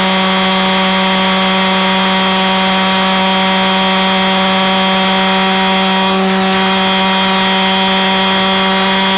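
Single-chamber reed-valve pulsejet engine running on gasoline: a seriously loud, steady buzzing drone held at one constant pitch, with no change in speed.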